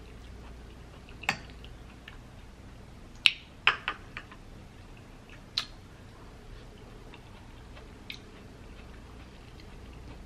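A metal spoon clicking a handful of times against the bowl as seafood gumbo is scooped up and eaten, the loudest clicks clustered about three to four seconds in, with soft chewing between.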